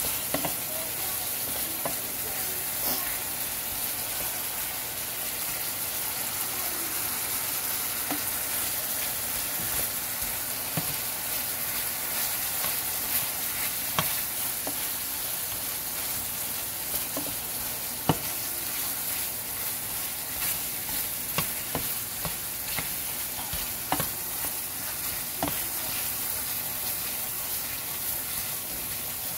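Marinated shrimp sizzling in oil in a frying pan on high heat, with a wooden spatula scraping and stirring them around the pan. Scattered sharp clicks where the spatula knocks against the pan.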